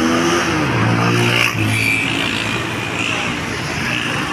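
Busy street traffic: motor vehicle engines running past over a steady wash of road noise.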